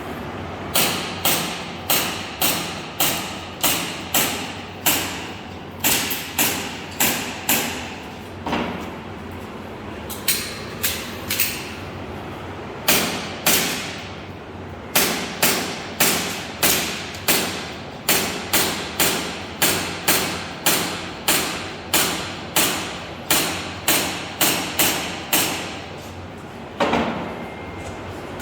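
Airsoft gas blowback pistol, an Umarex Glock 17 Gen 5, firing shot after shot at a quick steady pace of about two a second, in strings broken by brief pauses. Each shot is a sharp pop that dies away quickly.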